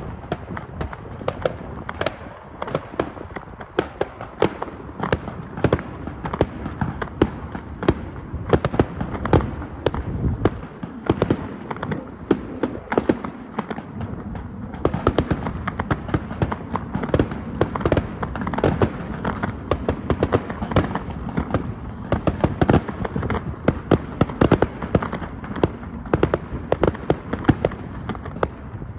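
Fireworks display: a dense, continuous volley of sharp bangs and crackles, several a second without a pause, over a steady low rumble.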